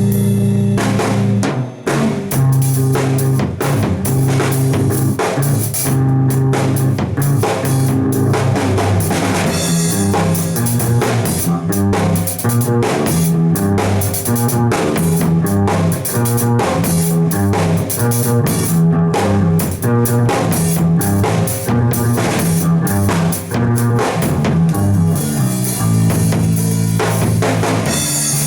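Loud band music: a drum kit keeping a steady beat, with bass notes and guitar.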